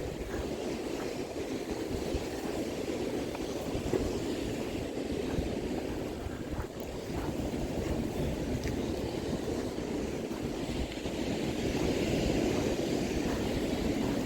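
Steady low rushing of wind and surf, with a few faint ticks.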